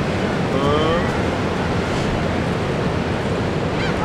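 Steady rush of wind buffeting the microphone over shallow surf lapping at the water's edge, with a few brief gliding gull calls about a second in and again near the end.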